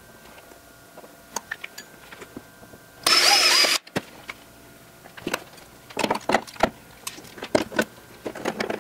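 A short, loud hissing whir lasting under a second about three seconds in, then a run of light scrapes, clicks and taps as the handle template plate is handled on the fibreglass door.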